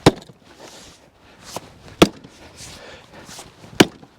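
Four sharp, separate knocks on a tough chunk of elm firewood, irregularly spaced a half to two seconds apart, with faint rustling between them; the jackhammer is not running.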